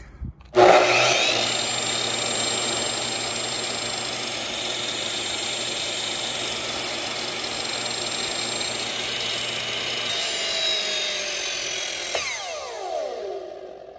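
Makita LS1214LR sliding mitre saw's brushed motor switched on about half a second in and running steadily at full speed, then released near the end and winding down with a falling whine over about two seconds as the electric brake slows the blade. A test run after polishing the worn commutator: the motor runs strong again, though the brake is slow to kick in.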